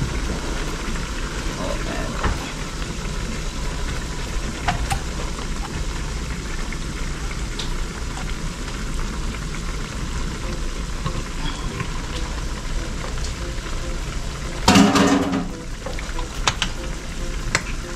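Stewed turkey neck cooking down in its own juices in a pot on the stove, sizzling steadily, with a few light clicks and one brief louder sound about fifteen seconds in.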